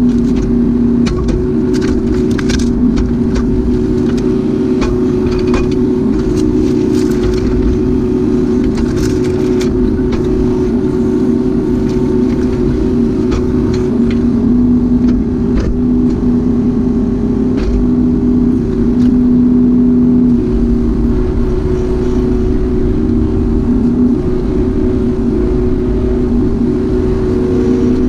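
Kubota U-35-4 mini excavator running steadily at working revs, with scattered knocks and clatters, most of them in the first ten seconds.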